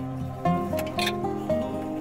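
Background music led by a plucked acoustic guitar, with two short clicks about half a second and one second in.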